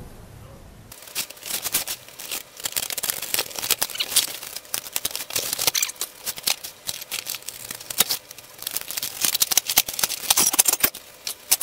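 Tape and plastic wrapping torn and crinkled off a bundle of drill bits, played back fast, so it runs as a dense, rapid chatter of crackles and clicks. It starts about a second in.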